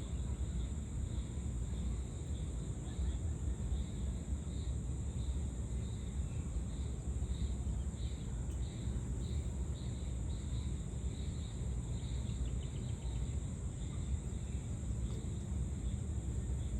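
Evening insects: a steady high-pitched drone with a repeated chirp about twice a second, over a steady low rumble.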